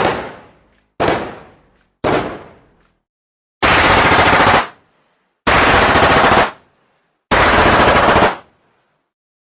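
Gunfire sound effects: three single gunshots a second apart, each with a trailing echo, then three bursts of machine-gun fire about a second long each.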